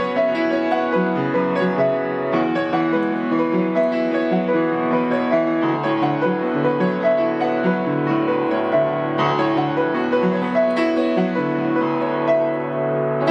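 Solo piano playing a cover arrangement of a song, with a melody over sustained chords.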